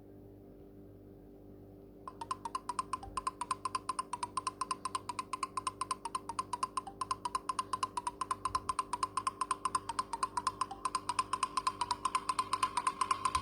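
A Nokia Asha 205 ringtone starting about two seconds in: a rapid, even run of short mid-pitched percussive ticks, about seven a second, growing steadily louder. A faint low hum lies underneath.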